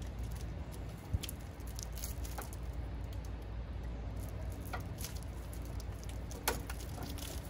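A few sharp clicks spread out over a faint plastic rustle: zip ties being cut off a snow blower's bubble-wrapped control rods.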